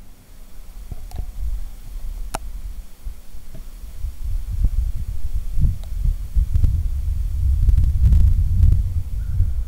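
Low, irregular rumbling that grows louder from about four seconds in, with two sharp clicks about one and two seconds in.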